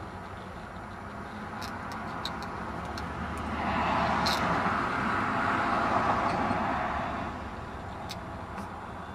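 A vehicle passing on the nearby road: its noise swells over a couple of seconds, holds for a few seconds, then fades. A few faint ticks sound on top.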